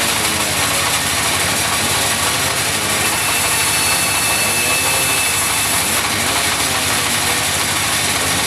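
Sawmill machinery running steadily: a wood-cutting saw and its engine, a continuous dense mechanical noise with a faint high tone from about three to six seconds in.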